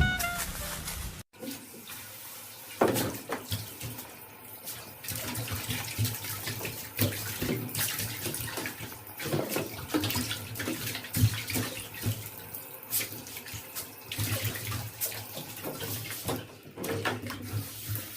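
Water running and splashing, with many short irregular splashes.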